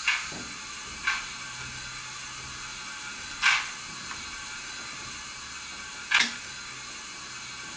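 Onboard sound decoder and small loudspeaker of a model steam locomotive standing still, playing recorded stationary steam-engine sounds: four short, sharp hissing or clanking sounds at uneven gaps over a steady faint hiss.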